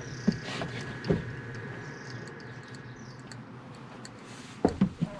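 Steady fan and electrical hum from an air fryer running off a 2000 W inverter, with a thin high whine that stops about three and a half seconds in, and a few light clicks.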